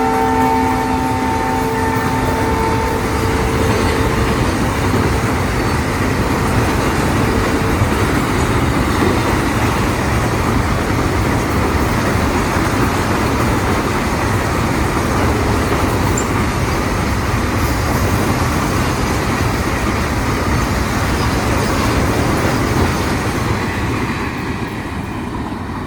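Container train hauled by a WDG4 diesel locomotive passing at speed. The last of its horn dies away over the first few seconds, then a long, steady rumble of the wagons running by, fading a little near the end.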